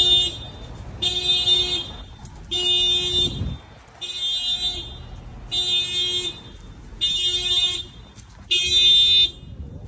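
Car alarm honking the car's horn in a steady repeating pattern: seven honks of a bit under a second each, about one every second and a half.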